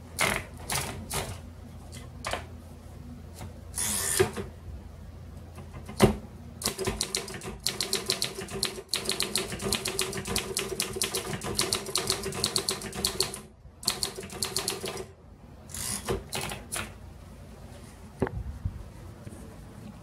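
1941 Royal Companion portable typewriter: paper being fed in and rolled around the platen, then a fast, even run of keystrokes lasting several seconds as a sentence is typed, with a few more key strikes and clicks after it.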